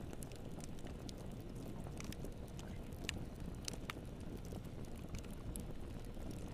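Wood fire burning in a fireplace: a steady low rumble of flames with irregular sharp crackles and pops, a few louder snaps about three seconds in.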